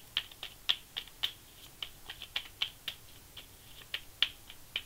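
A deck of tarot cards being shuffled by hand: irregular soft clicks and taps of the cards, a few each second.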